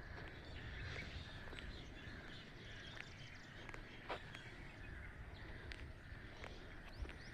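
Birds chirping faintly, with short scattered calls over a steady outdoor hiss and a low rumble.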